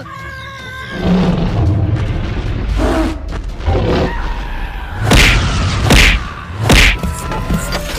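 Music with heavy booming hits, three loud ones about a second apart in the second half.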